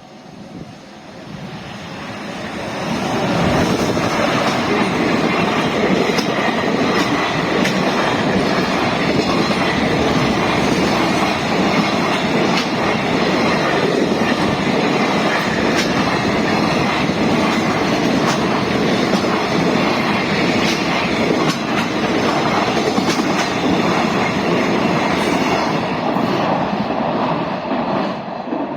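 Freight train passing close by, its wheels clattering over rail joints. It builds over the first few seconds, holds steady and loud, then eases off near the end.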